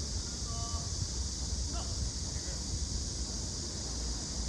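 Wind buffeting the microphone as a steady low rumble, under a constant high hiss, with faint distant voices from players on the pitch.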